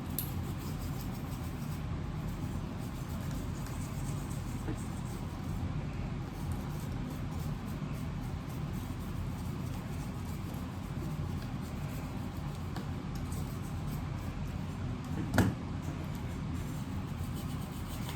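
A steady low background hum, with one sharp tap or click about fifteen seconds in.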